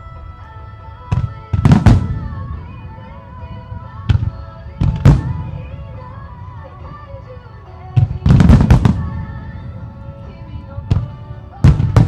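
Aerial firework shells bursting in sharp booms, singly about a second in, in pairs around two and five seconds, in a rapid volley around eight to nine seconds and again near the end, over music playing for the show with long held tones.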